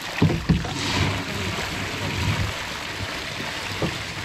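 Water splashing and sloshing as a net full of tamban sardines is hauled alongside a wooden outrigger boat and the fish are scooped aboard, with a few dull knocks against the boat, two close together near the start and one near the end.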